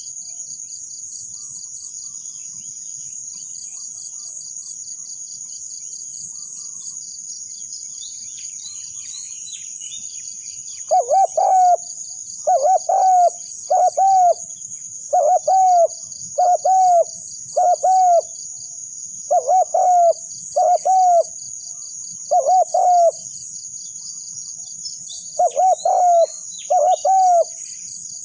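Spotted dove cooing in short repeated phrases of two or three coos, starting about eleven seconds in and going on at intervals of a second or two. Under it runs a steady, high-pitched pulsing insect drone, with a few faint chirps from small birds.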